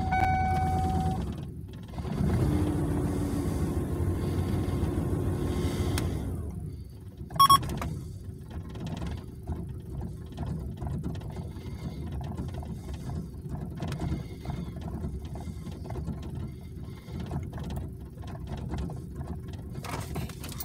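1993 Ford Explorer's 4.0 L OHV V6 idling, heard from inside the cab, its idle dropping from about 1000 rpm to about 700 rpm, just after a fresh start with a new mass airflow sensor fitted; the engine has not yet relearned its idle and is running a little better. A steady tone sounds in the first second, and a brief sharp sound comes about seven and a half seconds in.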